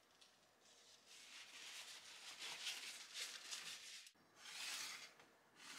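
Soft paper-towel rustling as a piece of raw yellowtail collar is patted dry, coming in a few separate bursts: a long stretch, then two short ones near the end.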